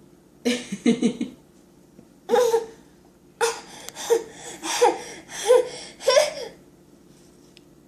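Toddler laughing in a run of short high-pitched giggles, a few at first and then four or five in quick succession.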